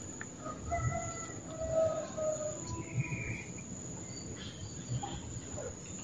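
A steady high-pitched insect drone, with a few faint short whistled bird notes in the first half and a brief rasping note about three seconds in.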